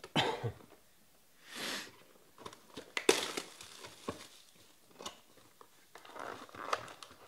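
Clear cellophane wrapper being torn and crinkled off a trading-card pack, with irregular rustles and a sharp click about three seconds in as the pack and box are handled.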